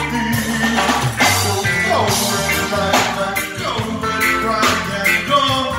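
Live rock band playing on stage: electric guitars, bass, drum kit and keyboard, with a lead vocal over a steady drum beat.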